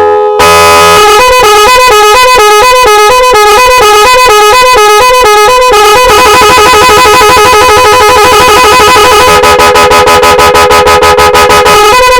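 Multi-tone electronic horn sounding loudly through its tone patterns. A fast warble between high and low notes gives way about six seconds in to a steady held tone. That tone breaks into a rapid stutter of about seven pulses a second, and the warble returns near the end.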